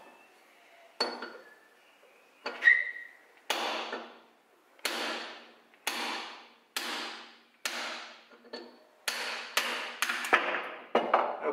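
Mallet strikes on a Lambretta TS1 aluminium engine casing that has just been heated: about a dozen sharp knocks at roughly one a second, each ringing briefly.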